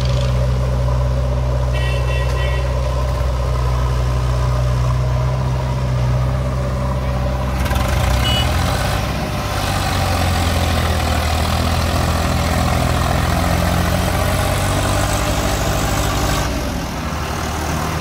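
Diesel engines of a Swaraj 744 FE tractor hauling a loaded trolley and a JCB 3DX backhoe loader working beside it, running steadily under load. The engine sound shifts and turns harsher about eight seconds in.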